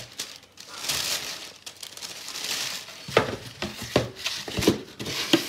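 Paper and packaging crinkling and rustling as a cardboard shoe box is handled, then several sharp knocks and taps from about three seconds in.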